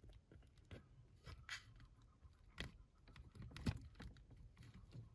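Faint scattered clicks and taps of a wire terminal being pushed and worked into a plastic bulkhead connector, its locking tab bent up to catch; the sharpest clicks come about two and a half and three and a half seconds in.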